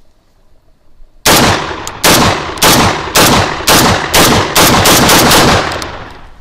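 Maestro Arms AR-12 series magazine-fed semi-automatic shotgun firing about ten shots in quick succession, roughly two a second, starting about a second in. The light 24-gram trap and skeet loads cycle the action through the whole ten-round magazine.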